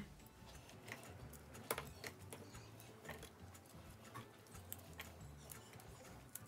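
Faint, scattered light clicks and taps of green chillies being handled and put into the plastic bowl of an electric mini chopper. The chopper's motor is not running.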